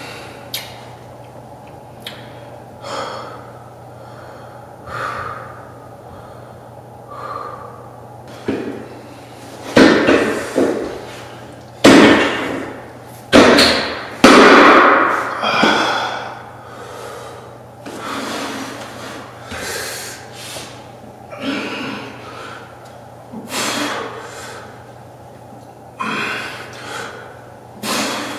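A man breathing hard in short, forceful exhalations during dumbbell reps, roughly one every one to two seconds, with a run of much louder bursts about ten to sixteen seconds in.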